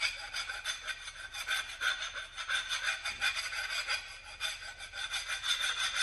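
Flat hand file rasping back and forth on a low carbon steel pipe held in a pipe vise, in quick repeated strokes. It is filing off the sharp marks left on the pipe so that nobody cuts their hands on them.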